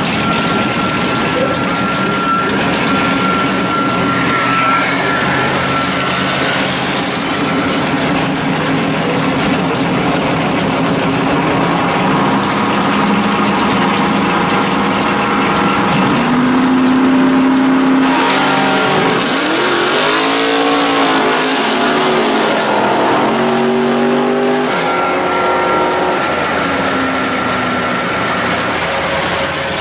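Chevy Nova drag car's V8 engine running loud, then revved up and down repeatedly in the second half, its pitch rising and falling.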